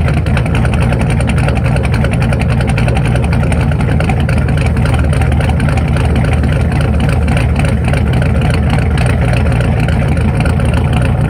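A 2008 Mustang GT's supercharged 4.6-litre three-valve V8, fitted with Detroit Rocker camshafts, shorty headers and Flowmaster mufflers, idling steadily, heard loud at the tailpipe.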